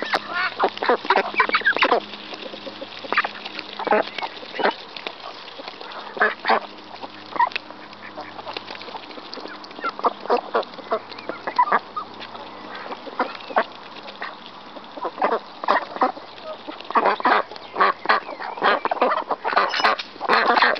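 White domestic ducks quacking in short clusters of calls as they feed on scattered grain, their bills pecking and dabbling at it close by. The calls are busiest in the first couple of seconds and again in the last few seconds.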